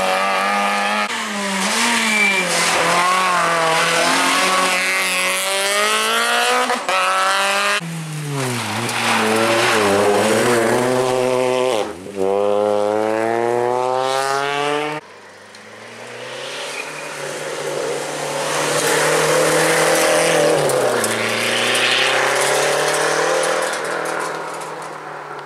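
Rally car engines revving hard through the gears, pitch climbing and dropping as the drivers accelerate, shift and lift off. The sound cuts abruptly between cars several times.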